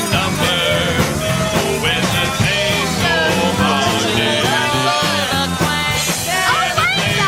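Rock music playing: a melody over bass and drums.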